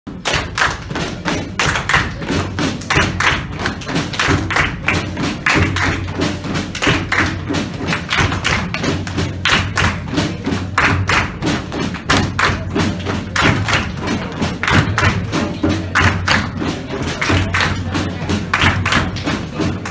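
A group of people clapping their hands in a steady rhythm, some clapping into partners' hands as part of a group clapping game.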